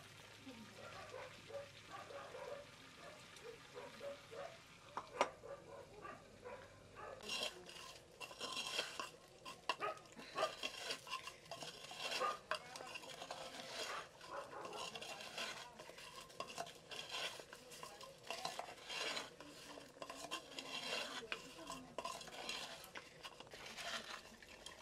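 A metal spoon stirring and scraping a wet mixture of onions and spice paste inside a clay pot, in repeated strokes from about seven seconds in. Before that there are only light handling sounds and a single click.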